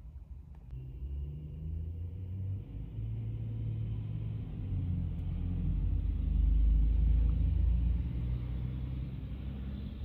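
Road traffic passing through a wet intersection: the low rumble of bus and car engines, swelling to its loudest about six to eight seconds in, then easing off.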